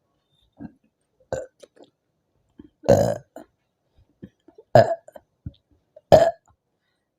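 A woman belching loudly from carbonated lemon soda: three big burps about three, five and six seconds in, with a few short, quieter sounds before and between them.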